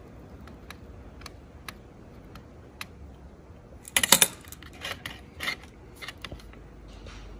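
Small clicks and taps of hand tools while a wire is soldered to a circuit board: tweezers and solder handled against the board and tabletop. Scattered light ticks at first, then a quick cluster of louder clatters about four seconds in and a few more over the next two seconds.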